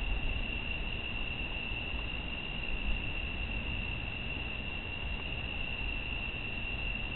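Night-time outdoor ambience: a steady high-pitched drone over a low rumbling background noise, with no thunder.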